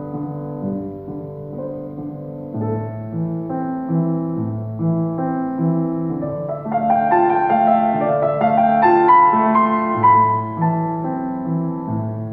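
Grand piano playing a slow solo piece: a steady bass line of roughly one note a second under sustained chords, swelling louder with a busier, higher melody about seven seconds in, then easing back.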